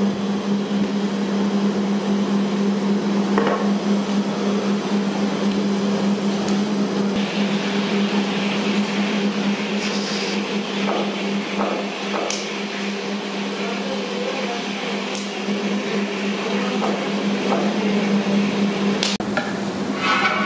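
A steady machine hum at one low pitch, with a few sharp clicks and knocks scattered through it.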